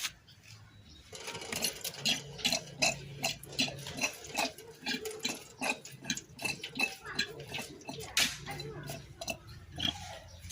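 Car AC compressor being turned and shaken by hand with flushing oil inside: a run of quick, irregular metallic clicks and clatter with oil sloshing in the housing, starting about a second in.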